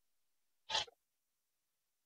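Hands working a small hose fitting: one short scrape a little under a second in, otherwise near silence.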